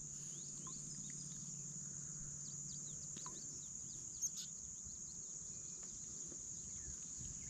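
Open-air ambience: a steady high insect drone, typical of crickets, with many short bird chirps scattered over it. A faint low hum is under it for the first three seconds or so.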